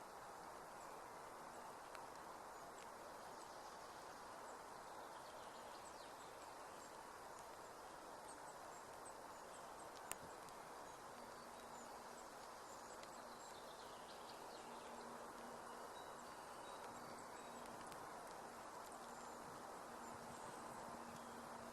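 Faint, steady hiss of light rain falling, with scattered faint high chirps over it. A single sharp click comes about ten seconds in, and a faint low steady hum joins shortly after.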